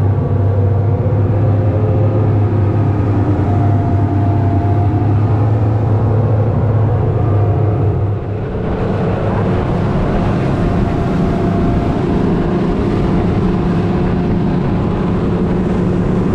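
Motorboat engine running with a steady low drone. About eight seconds in the sound changes to the boat underway at speed: engine drone under the rush of water from the wake.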